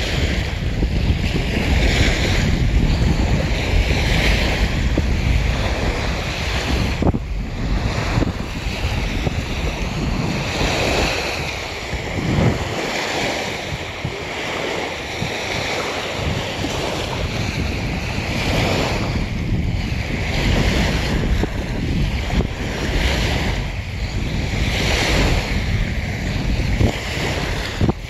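Small waves breaking and washing up on a sandy shore again and again, with wind buffeting the microphone in a low rumble.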